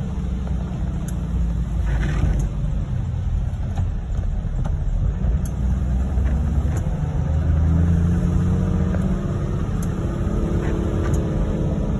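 Steady low rumble of a vehicle driving on wet roads, heard from inside the cab, with a few light ticks scattered through it.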